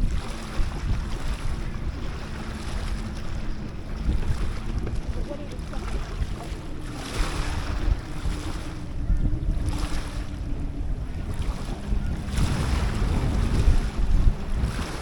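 Strong wind buffeting the microphone, with waves washing in, rising in gusts a few times.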